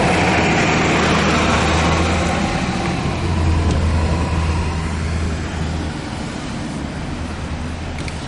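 A car driving at low speed, heard from inside the cabin: a steady low engine hum with road and tyre noise. The hum swells in the middle and eases off near the end.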